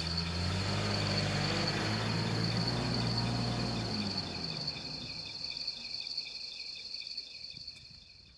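Crickets chirping in a steady, pulsing rhythm, with a box truck's engine running low underneath for about the first four seconds before it drops away. The whole sound fades out near the end.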